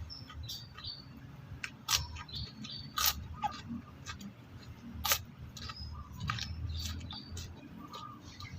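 Close-up chewing of raw bitter gourd, with a few sharp crunches, while small birds chirp in the background.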